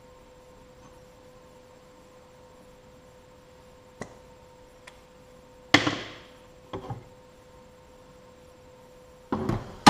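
Workbench handling noise: a loud knock with a short ring about halfway through, as a metal square is set down or moved on the gasket sheet, with a couple of light clicks before it, another knock just after, and more clatter near the end. A faint steady hum runs underneath.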